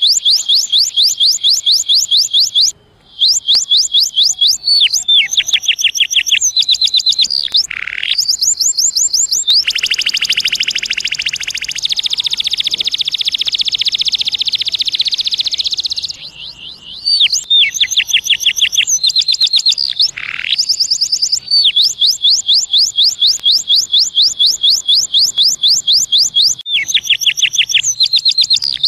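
Canary singing a fast, loud song of high trilled phrases, each a rapid run of repeated notes. Near the middle it holds one long unbroken roll for several seconds. The song breaks off briefly about three seconds in and softens for a moment about sixteen seconds in.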